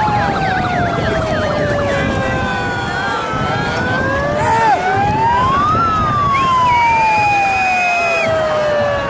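A siren wailing, its pitch sliding slowly down, climbing back up to a peak a little past halfway, then sliding slowly down again, over the din of a large outdoor crowd. A steady higher tone sounds for about two seconds near the end.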